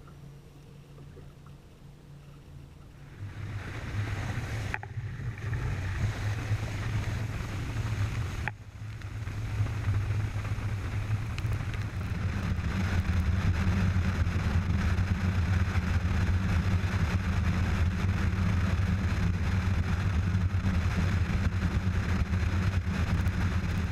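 Bass boat's outboard motor running with the hull under way: a low steady engine drone mixed with a rush of water and wind. It builds up about three seconds in and holds steady at speed from about twelve seconds in.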